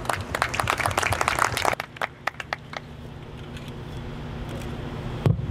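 Guests applauding: dense clapping for about two seconds that thins to a few last claps and dies away. A single low thump near the end.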